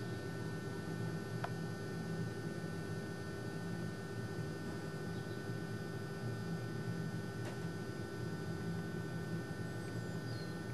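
Steady electrical hum with a constant hiss, with two faint clicks and a couple of faint high chirps over it.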